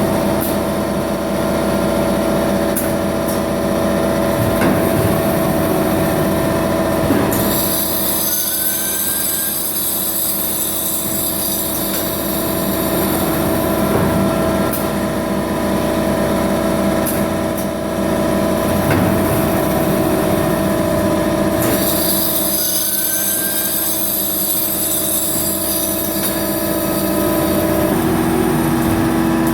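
Automatic film cutting machine running: a steady mechanical hum with a pitched whine, and a higher hiss that comes in about seven seconds in and comes and goes after. Near the end the whine changes to a lower tone.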